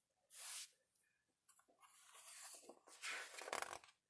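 Paper rustling as a hand lifts and turns a page of a hardcover picture book, soft at first and loudest near the end as the page swings over.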